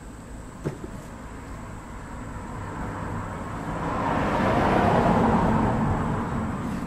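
A passing vehicle's road noise, swelling to a peak about five seconds in and then fading. A single light knock less than a second in.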